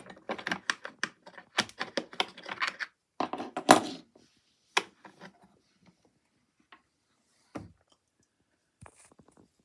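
A pile of metal pocket knives clattering and clicking together as they are rummaged through in their container: a rapid jumble of clinks for about four seconds, then a few scattered clicks.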